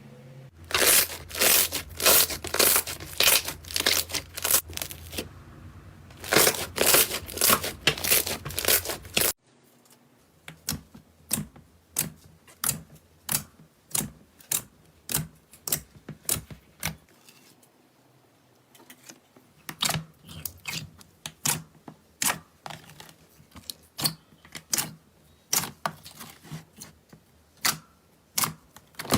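Slime being pressed and stretched by hand, giving rapid crackling, popping clicks. About nine seconds in the sound changes abruptly to slower, separate pops, one or two a second.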